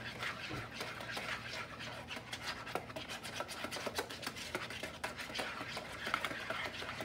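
A utensil stirring quickly in a dish, with steady scraping and clicking several times a second, as flour is mixed with hot chili liquid into a thickening slurry.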